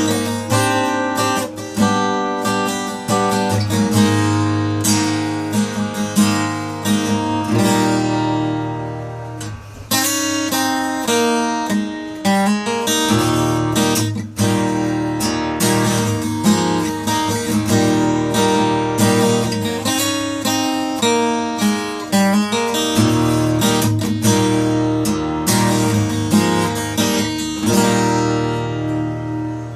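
Takamine D50 acoustic guitar being played, a steady run of strummed chords and picked notes, each ringing on under the next.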